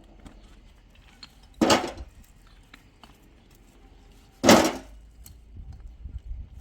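Two loud, short thuds about three seconds apart, the first about two seconds in, with faint clinking and small knocks between them.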